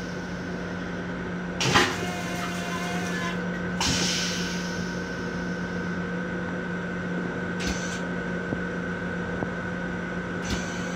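Steady electrical hum with a faint high whine inside the restroom of a Long Island Rail Road M7 railcar, broken by a sharp knock about two seconds in, a knock followed by a short hiss near four seconds, and a couple of lighter knocks later.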